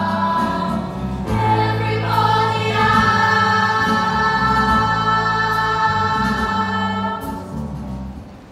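Female stage ensemble singing together, holding long notes over music, the song fading out near the end.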